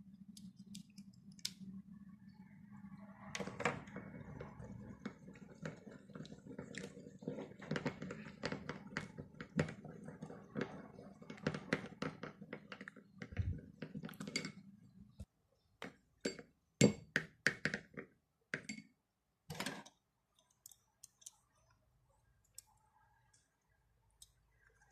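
Slime being squeezed and poked, giving a dense run of small wet clicks and pops over a low steady hum. The hum stops about fifteen seconds in, leaving a few separate, louder clicks.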